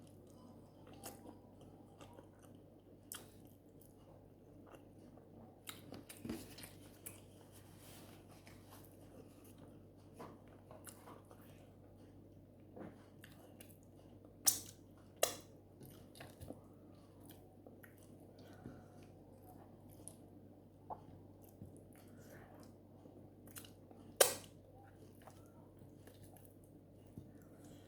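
Close-up eating sounds: a person chewing and biting, with scattered sharp clicks and smacks, three of them loud, about halfway through and near the end, over a low steady hum.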